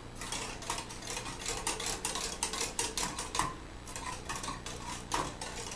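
Wire whisk stirring pudding in a pot: a quick, uneven run of clicks and scrapes of the wires against the pot.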